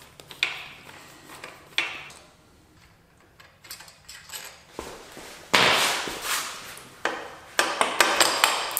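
Metal tools knocking and clinking on a motorcycle engine while its starter motor is unbolted. There are two sharp knocks in the first two seconds and a louder clatter lasting over a second from about five and a half seconds in, then a run of quick small clicks near the end.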